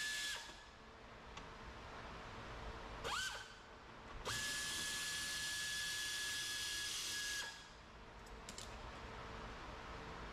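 Handheld power driver backing out screws inside a car's front wheel well. It spins up briefly with rising pitch about three seconds in, then runs at a steady high whine with hiss for about three seconds. A couple of faint clicks follow.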